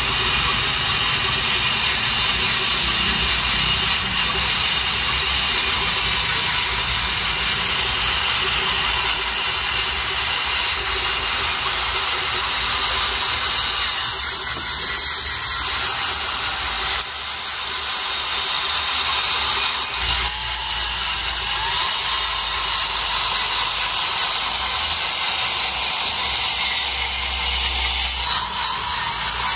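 Hydraulic system of a homemade 1/8-scale RC Cat 390F excavator running, with a steady high whine and hiss. The level dips briefly about seventeen seconds in.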